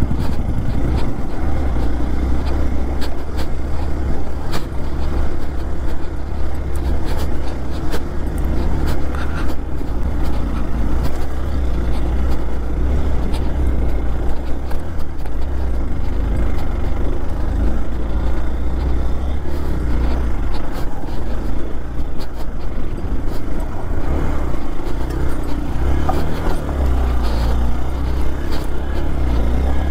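Hero Xpulse 200 4V single-cylinder motorcycle running on an off-road trail, with heavy wind rumble on the helmet-mounted microphone and scattered knocks from the rough ground.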